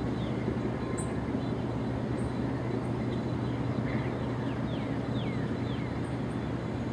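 Diesel locomotive engine running steadily as a low, even drone, with birds chirping over it, including a quick run of falling chirps in the second half.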